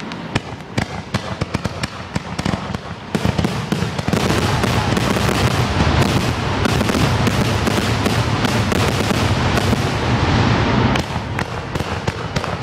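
Aerial fireworks going off in a rapid barrage. Scattered crackling reports for the first three seconds, then a dense, continuous volley of bangs and crackle that thins out about a second before the end.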